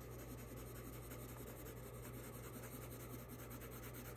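Brown colored pencil rubbing on paper in many quick short strokes, a faint continuous scratching as it shades darker areas of a drawing.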